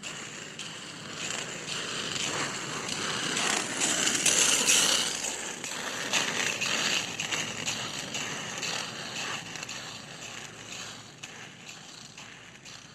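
Roller skate wheels rolling on a hard floor with small clicks and rattles, growing louder as the skater approaches, loudest about four to five seconds in, then fading as the skater rolls away.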